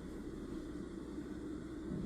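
Room tone: a steady low hum with faint hiss and no distinct events.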